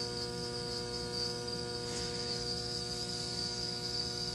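Many crickets chirping in a steady, high-pitched continuous trill, with a low electrical hum underneath.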